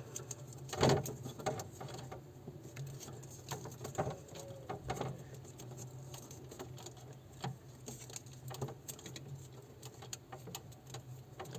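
Electrical insulating tape being pulled off the roll and wrapped tightly around a spliced wire: scattered small crackles and rustles over a steady low hum.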